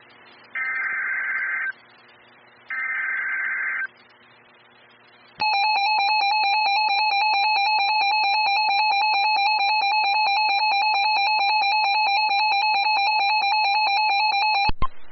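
Two short buzzy data bursts of the Emergency Alert System (SAME) header, about a second each, then a steady EAS attention tone lasting about nine seconds that cuts off suddenly. Together they herald a National Weather Service tornado warning on NOAA Weather Radio.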